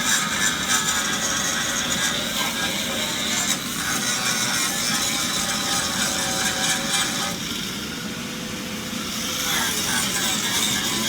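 Handheld grinder running against a steel frame rail, grinding off old undercoating, with a steady motor whine. It eases off and quietens briefly about seven and a half seconds in, then bears down again.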